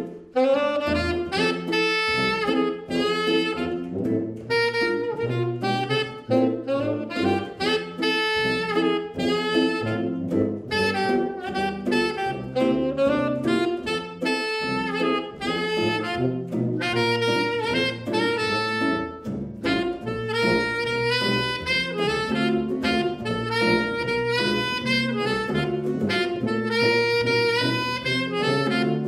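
A small jazz group playing, with a saxophone carrying a busy melodic line over a tuba bass line and archtop electric guitar accompaniment.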